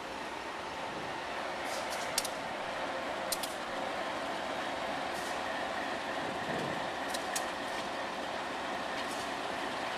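Diesel locomotives running, a steady engine drone, with a few sharp metallic clicks scattered through it.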